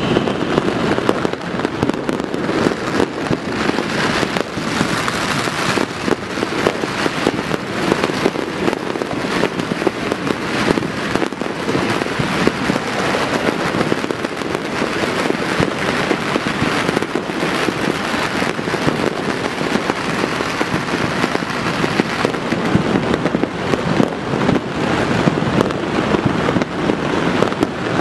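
Many fireworks and firecrackers going off at once across a city: a dense, unbroken barrage of overlapping bangs and crackling with no pause.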